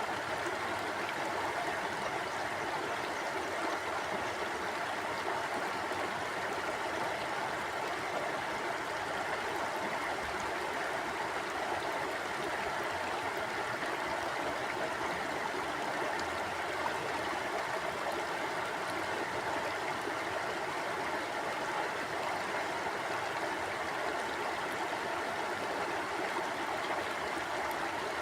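Mountain stream flowing over rocks: a steady rush of water without let-up.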